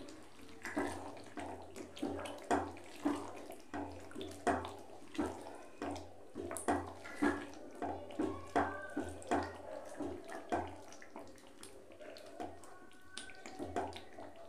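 Spatula stirring a thick chicken curry gravy in a pan: wet sloshing and scraping strokes about two a second, easing off near the end.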